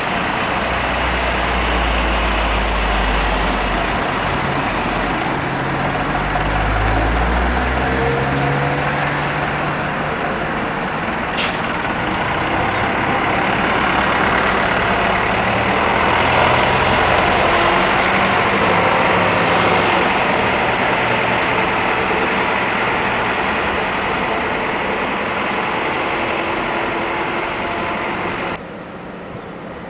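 A large diesel bus engine running close by, its low note stepping up in pitch over the first several seconds, over steady road-traffic noise. There is a single sharp click about eleven seconds in, and the sound drops suddenly near the end.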